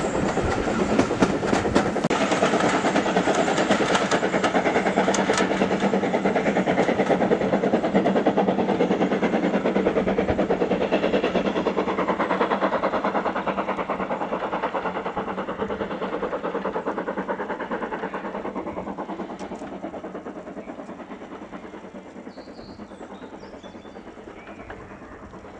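Steam locomotive 78019, a BR Standard Class 2 2-6-0, working hard up a steep bank. Rapid exhaust beats and the rumble of the train fade steadily as it pulls away up the gradient.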